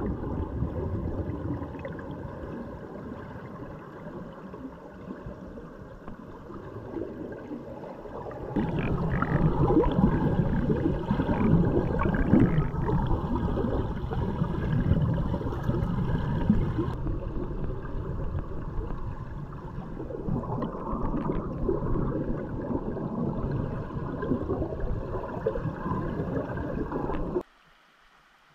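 Turbulent river rapids heard underwater through a submerged action camera: a dense, muffled gurgling rush of churning water and bubbles. It grows louder and deeper about a third of the way in and cuts off abruptly near the end.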